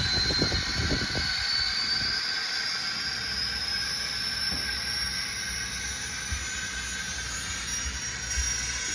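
N scale Union Pacific gas turbine locomotive's sound decoder playing a high turbine whine that slowly rises in pitch, over a steady hiss. A low rumble from the model running past close by fades in the first second or two as the train draws away.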